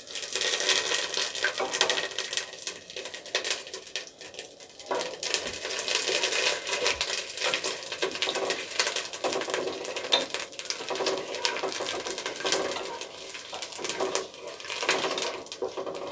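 Whole spices and ginger frying in hot oil in a pot, a dense sizzle with crackling that breaks out suddenly as the ginger goes in: the tempering stage of khichuri. A wooden spatula stirs and scrapes against the pot.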